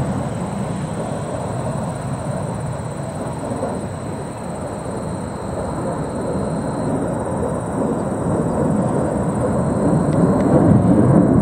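Distant jet noise from F-16 fighters, a steady rumble that eases slightly a few seconds in and swells again near the end.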